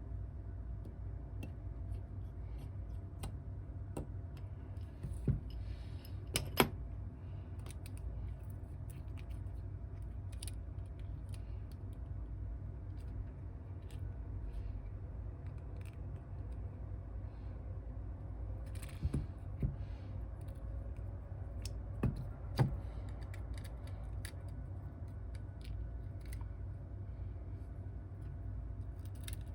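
A few light clicks and taps, some in quick pairs, over a steady low hum.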